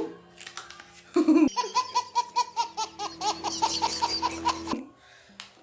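High-pitched laughter, a quick run of repeated 'ha' syllables, starting about a second in and cutting off abruptly near the end.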